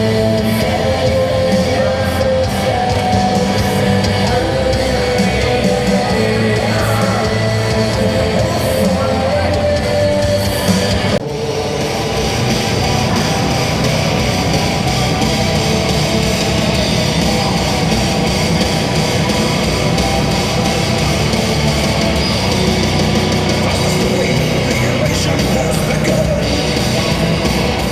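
Loud heavy rock music, continuous apart from a brief dip about eleven seconds in.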